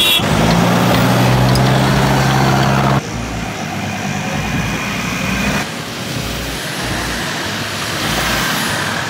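Four-wheel-drive utes driving on soft sand tracks: an engine runs steadily for about three seconds, then the sound changes abruptly to quieter vehicle and surrounding noise, with another sudden change about six seconds in.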